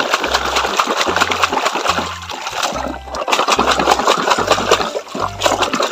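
Muddy water splashing and sloshing as a plastic toy cement mixer truck is swished and scrubbed by hand in a shallow trough of water, with two brief lulls.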